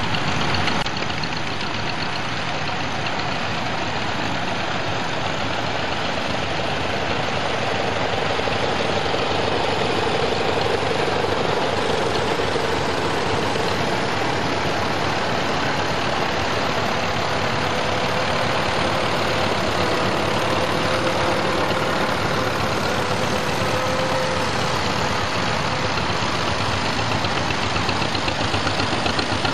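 Several vintage farm tractors driving past slowly in a line, their engines running steadily, with one engine's note standing out through the middle.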